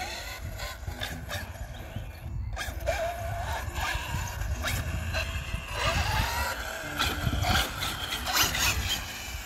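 Two radio-controlled buggies driven together over grass, their motors whining up in pitch as they speed up, about three seconds in and again about six seconds in. Scattered clicks and knocks come from the cars, over a low rumble of wind on the microphone.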